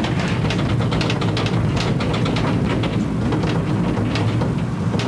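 Mine hoist cage descending the shaft: a steady low rumble with a continuous, irregular rattling clatter.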